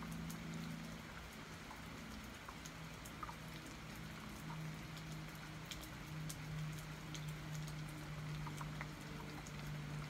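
Steady rain falling, with many separate drops ticking sharply over the even hiss. A low steady hum runs underneath, swelling and fading.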